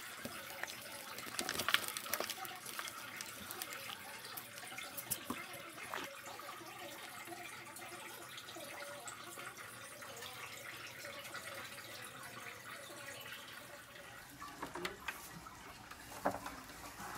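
Soft rustling and crackling as rooted cuttings are pulled out of damp potting soil in a foil tray and the roots are handled, with scattered small clicks over a steady hiss. The handling noise is busiest near the start and again near the end.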